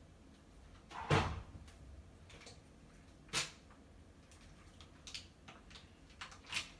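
A few separate knocks and clicks: a thud about a second in, another about three and a half seconds in, then a run of lighter taps and clicks toward the end.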